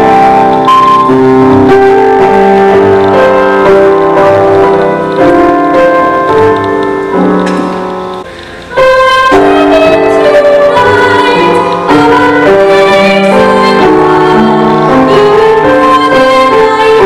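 Piano music, chords and melody notes played continuously. About eight seconds in it fades down, and a new passage starts abruptly with a loud chord.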